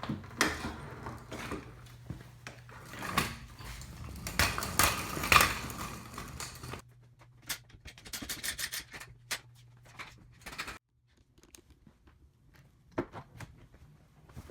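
Metal hydraulic wheel dollies being handled and moved, with irregular clanks, knocks and scrapes over a low steady hum. The sound turns sparser about seven seconds in, and only a single knock comes near the end.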